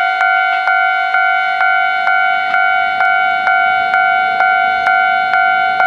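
Japanese railway level crossing's electronic warning bell ringing, a clanging tone struck evenly about twice a second.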